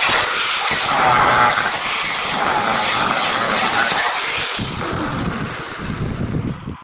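Power saw cutting through aluminium pipe, a loud, steady grinding whine. The high-pitched part fades away over the last two seconds.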